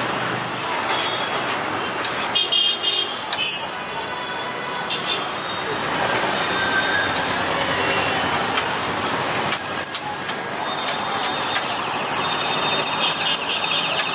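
Busy road traffic: a steady wash of vehicle noise with horns tooting now and then, the loudest about two to three seconds in, and a wavering high tone near the end.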